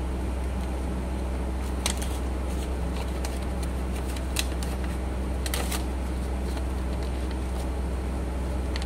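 Sheet of paper rustling and crackling in a few short bursts as it is creased and folded into an origami crane, over a steady low hum.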